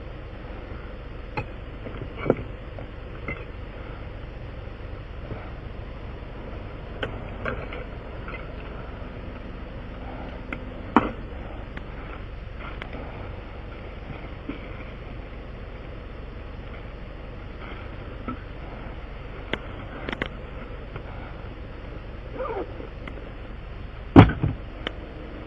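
Scattered clicks and knocks of hand tools being wiped down and put away, the loudest near the end, over a steady low hum.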